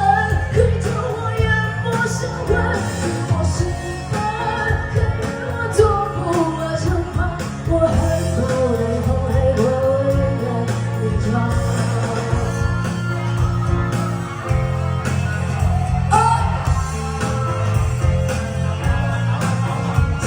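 Live rock-styled band performance: a singer's voice carries a gliding melody over bass, guitar and a steady drum beat.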